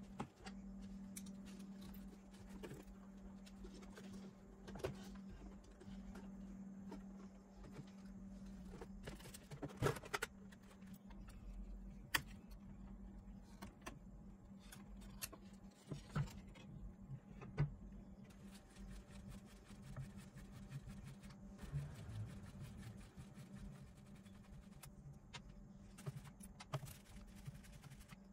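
Scattered clicks, knocks and rattles of a cassette boombox being taken apart by hand: a screwdriver working its plastic casing, side cutters snipping wires, and parts being handled, loudest in a short cluster of knocks about ten seconds in. A steady low hum runs underneath for the first ten seconds or so.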